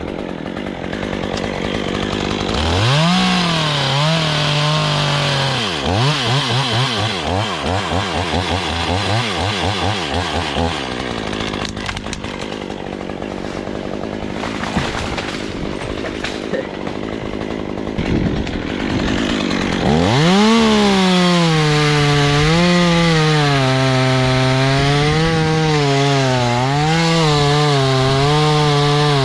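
Chainsaw revving up and cutting wood, its pitch dipping and recovering as the chain loads in the cut. There is a quieter, less steady stretch in the middle, then from about two-thirds of the way in the saw runs at high revs through a long cut.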